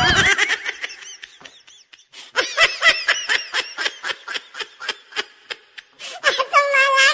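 Laughter: a quick run of short 'ha' bursts at about five a second, starting a couple of seconds in, then a higher held laughing squeal near the end.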